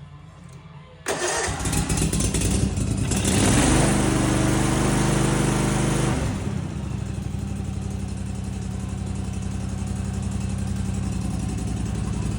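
Snapper zero-turn mower's engine starting about a second in, running fast for a few seconds, then settling to a steady lower speed. It is running without its air filter fitted.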